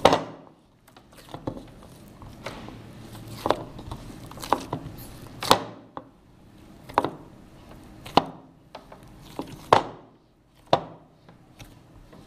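Risen bread dough being kneaded and punched down by hand: a series of dull knocks and slaps, irregular, roughly one a second.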